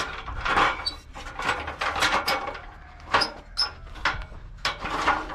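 Irregular rustling and crackling of dry, leafless shrub branches being pushed and handled.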